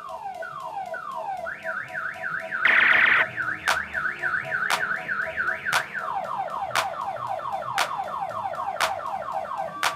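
Electronic multi-tone siren cycling through its patterns: a run of falling sweeps, then a fast up-and-down warble, then quicker falling sweeps. Sharp clicks come about once a second from a few seconds in.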